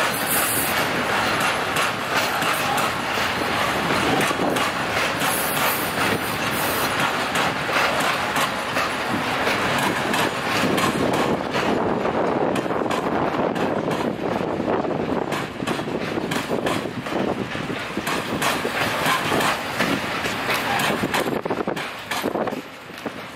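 Open-top freight wagons of a long freight train rolling past, their wheels making a steady rumble on the rails with many quick clicks. The sound dips briefly near the end.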